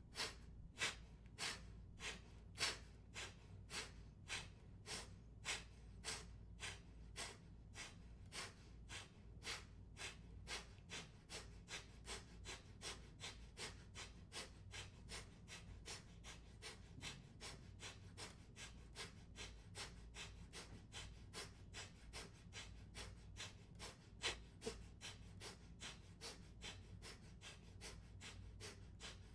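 A man doing a pranayama breathing exercise: a long run of rapid, forceful exhalations through the nose, about two to three sharp puffs a second, held to a steady rhythm that quickens slightly toward the end.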